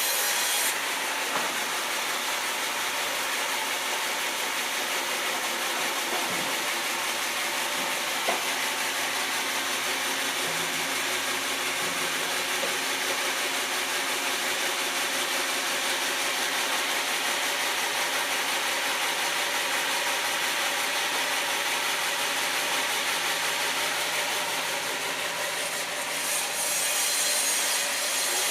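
Sawmill saw cutting through a log, a steady saw-through-wood noise over the running mill's motor, getting a little brighter near the end.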